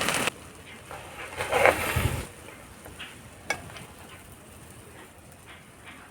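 Egg fry sizzling in hot oil in a frying pan, cutting off abruptly a moment in. Quieter scraping and clinking follows, with a sharp click about three and a half seconds in.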